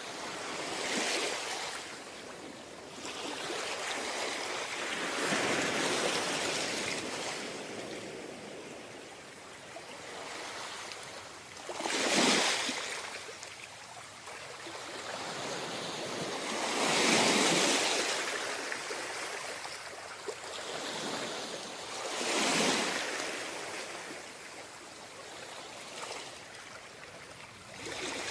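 Waves breaking and washing up on a tropical beach, in slow swells every few seconds, a few of them louder crashes.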